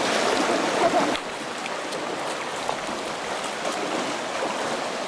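Shallow river rushing over rocks, a steady flow of water; it drops a little in level about a second in.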